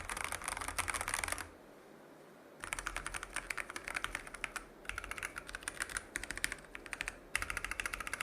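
Typing on a stock, unmodded Keychron K6 Pro mechanical keyboard with factory-lubed Keychron K Pro switches and PCB and silicone case foam fitted: runs of fast keystrokes, with a pause of about a second near the start and shorter breaks later.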